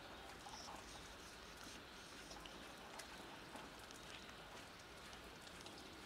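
Near silence: faint, even outdoor background hiss with a few soft ticks.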